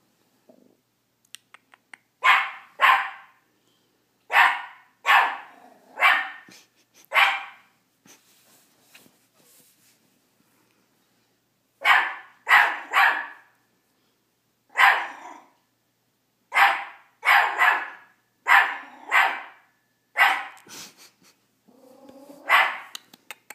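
Miniature pinscher barking at its own reflection in a fireplace's glass door: short, sharp barks in clusters of one to four, with a pause of a few seconds partway through.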